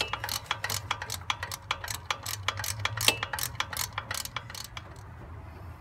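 Socket ratchet clicking rapidly and evenly as it backs out the 14 mm alternator mounting bolt, stopping about five seconds in.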